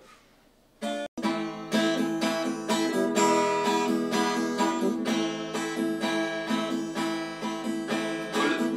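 Acoustic guitar strummed as a song's introduction, starting about a second in after near silence.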